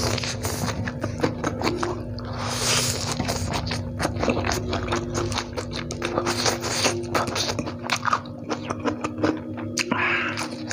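Close-miked eating sounds: noodles slurped in short noisy draws and chewed with rapid wet clicks and lip smacks, with a bite of raw lettuce near the end.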